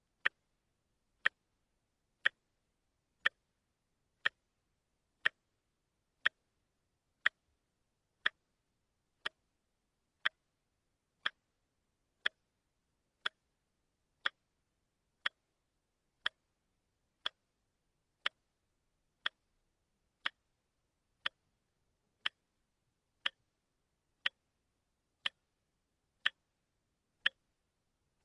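Watch ticking steadily, one short sharp click each second with silence in between.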